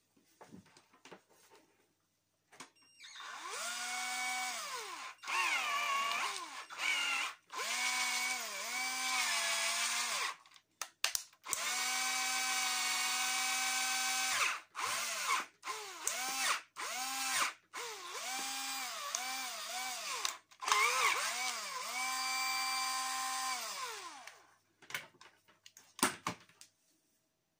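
Cordless drill running off a computer power supply, its motor whining in a series of bursts as the trigger is squeezed and released. Each time the pitch rises to speed, holds, then falls away. A few clicks come near the end.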